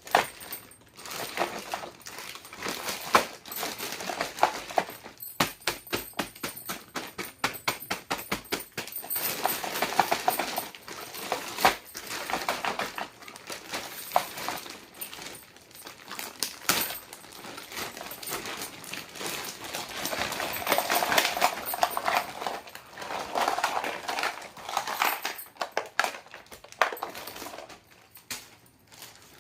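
Small plastic miniature kitchen toys and their packaging being handled: crinkling, tapping and light plastic clicks and clinks, with a quick, even run of clicks about a third of the way through.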